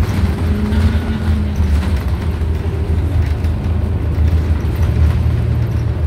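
Inside a New Flyer XDE40 diesel-electric hybrid bus under way: a steady low rumble from its Cummins ISL9 diesel and hybrid drive, mixed with road noise. A faint tone rises and fades over the first two seconds.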